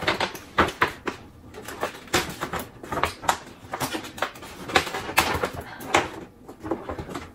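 Tissue paper rustling and crinkling as it is pulled out of a paper gift bag, in quick irregular crackles.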